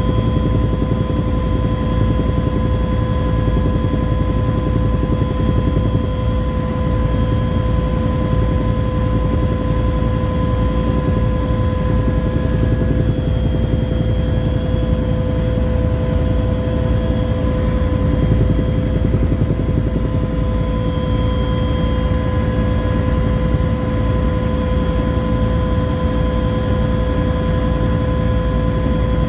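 Bell UH-1 helicopter in level cruise, heard from inside the cabin: a steady rotor beat and turbine engine noise with a constant whine.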